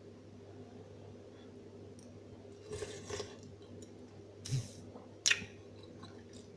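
Faint eating sounds of a person taking noodle soup by spoon: a few short slurps and chewing, with a sharp click about five seconds in, over a low steady room hum.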